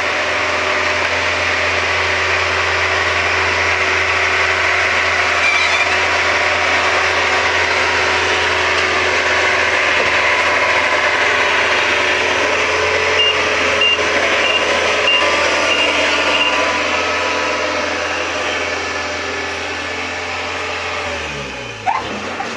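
Kubota rice combine harvester running steadily, its engine and threshing machinery making a constant mechanical din. A short run of high beeps sounds about two-thirds of the way through, and the engine hum drops away near the end.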